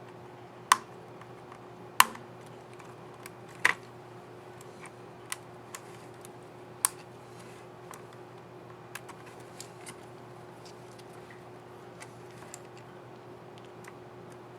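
Plastic clicks of an HP 250 G4 laptop keycap and scissor mechanism being snapped into place and pressed. There are several sharp clicks in the first seven seconds, then lighter, scattered taps, over a faint steady hum.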